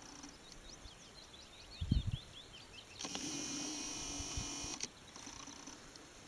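A small songbird twittering in quick, short chirps during the first half. A single low thump comes about two seconds in. About three seconds in, a camcorder's zoom motor whines steadily for nearly two seconds as the lens zooms out.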